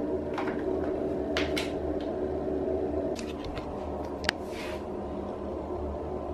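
Light clicks and taps from stepping onto a digital bathroom scale, over a steady hum in a small room, with one sharp click about four seconds in.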